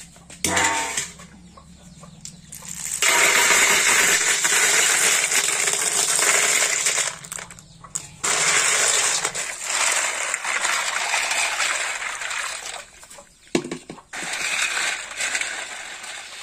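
Freshly caught river snails clattering against a stainless steel bowl as they are tipped in from a bamboo trap and stirred: a dense rattle of many small shells on metal, coming in long spells. There is a sharp knock near the start.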